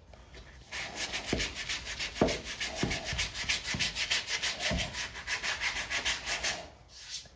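Hand sanding of cured body filler on a truck cab panel with a sanding block: quick, even back-and-forth strokes with a few light knocks. The strokes begin just under a second in and stop near the end.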